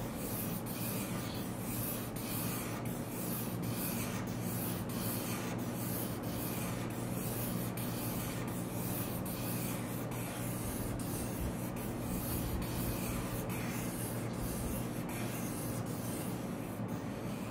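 Felt-tip permanent marker scratching across paper on a clipboard in quick back-and-forth strokes, about two to three a second, over a steady low hum.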